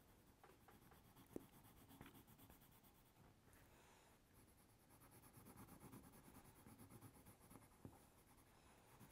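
Faint scratching of hand coloring on paper, steady strokes with a few light taps, a little stronger in the second half.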